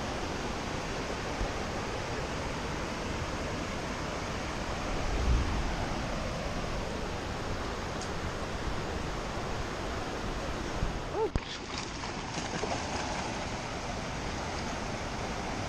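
Steady rush of falling water from a waterfall, with a short louder low rumble about five seconds in.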